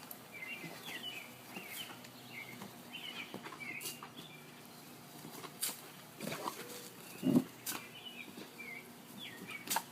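A dog's short low vocal sound about seven seconds in, over a run of faint high chirps and a few light clicks.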